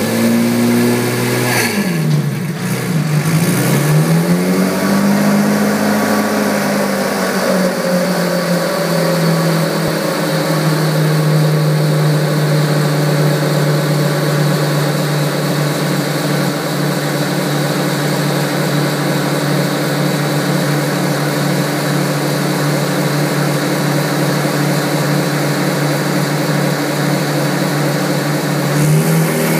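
Turbocharged 3.5-litre Honda V6 running: its engine speed drops sharply about two seconds in and comes back up, then holds steady for most of the time before rising again near the end.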